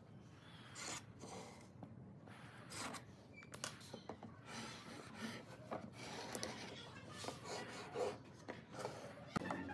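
Pen tips scratching lines on a wooden board, with a marking gauge and a square sliding and rubbing on the wood: a string of short, light scrapes that grows denser in the second half.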